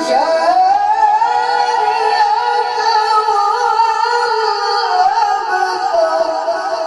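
A man's voice chanting Quran recitation in the melodic tajweed style: long, high held notes with wavering, ornamented turns, the melody stepping down about five seconds in.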